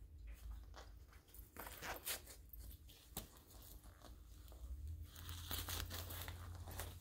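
Boxing glove's hook-and-loop wrist strap pulled open in a few short faint rips, with rustling as the glove is handled.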